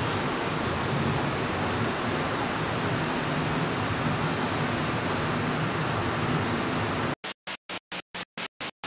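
Steady hiss with a faint low hum. About seven seconds in it starts cutting sharply on and off, about four times a second, with dead silence between the bursts, like a recording glitch.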